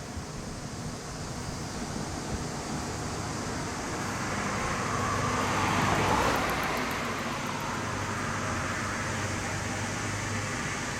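A road vehicle passing by: a rush of tyre and road noise that builds to its loudest about six seconds in, then fades away.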